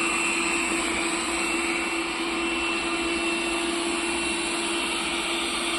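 Robot vacuum cleaner running: a steady whir with a constant low hum and a thin high whine over it.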